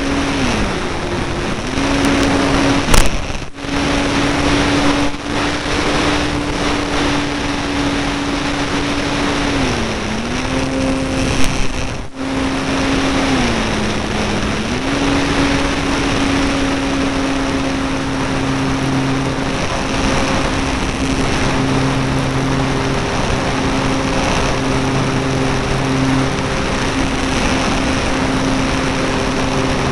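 E-flite Apprentice's electric motor and propeller running at a steady high pitch, heard from a camera on the plane over constant wind rush. The pitch dips briefly twice as the throttle is eased, about ten and thirteen seconds in. Two short loud crackles with brief dropouts come about three and twelve seconds in.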